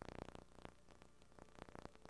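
Near silence: faint static hiss with a few soft clicks.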